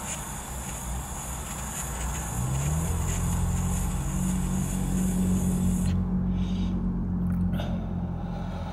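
A long inhale drawn through a Puffco Peak Pro electronic dab rig, a steady airy hiss that cuts off about six seconds in, followed by a few exhaled breaths. A low steady hum comes in about two seconds in and continues underneath.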